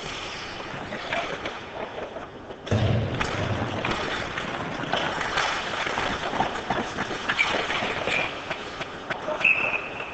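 Ice hockey play in a rink: skates scraping and sticks and puck clacking, with a heavy thud about two and a half seconds in. A referee's whistle blows briefly near the end, stopping play.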